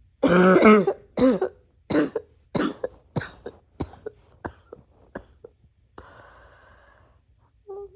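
A person in a coughing fit: one long, voiced cough, then about seven shorter coughs in quick succession that grow weaker, followed by a long breath.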